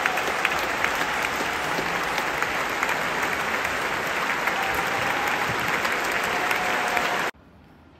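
A large concert-hall audience applauding, dense steady clapping that cuts off abruptly about seven seconds in.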